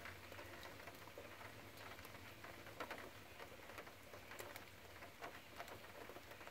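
Light rain: faint, irregular ticks of scattered raindrops landing, a few a second, over a low steady hum.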